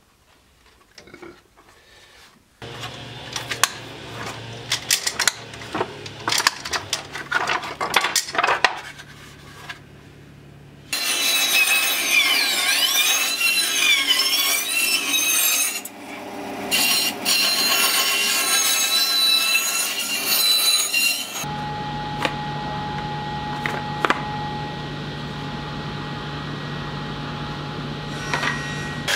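Bandsaw cutting a thin wooden board, loud and steady for about ten seconds in the middle, starting abruptly. Before it, scraping and tapping of hand work on wood over a low hum; after it, a steady electric hum with a faint high tone.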